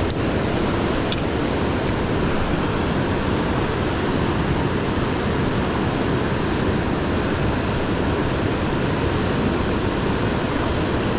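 Steady rushing of fast-flowing creek water over rocks, an unbroken even roar.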